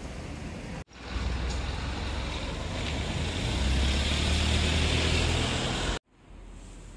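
Street traffic: a car's tyre and engine noise growing louder over a few seconds, then cut off suddenly, followed by a quieter street hum near the end.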